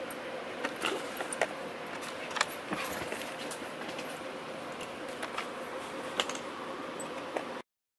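A dog's metal chain collar jingling in small irregular clinks as the dog moves about right at the microphone, over a faint steady hum. The sound drops out briefly near the end.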